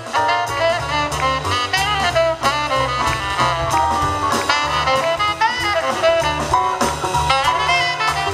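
Live jazz band playing, with a saxophone carrying a quick melodic line over a moving bass line, drums and brass.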